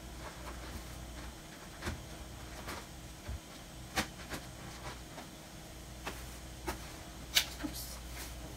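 Scattered small clicks and knocks of medical supplies being handled at a hospital room counter, the sharpest about 4 seconds in and near the end, over a low steady hum of room equipment.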